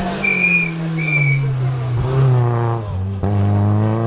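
Rally car engine working a stage: the revs fall for about two seconds, then climb, break briefly at an upshift about three seconds in, and climb again. Two short, shrill whistle blasts sound over it near the start.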